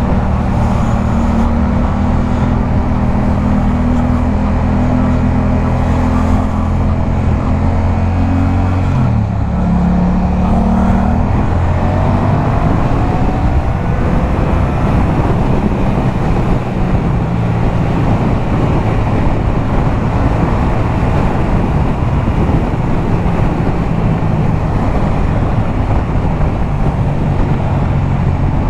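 Yamaha MT-07's 689 cc parallel-twin engine with a LeoVince aftermarket exhaust, running steadily at highway speed. About nine seconds in the engine note dips and picks up again at a slightly lower pitch, like an upshift. After that the engine tone fades under a steady rush of wind noise.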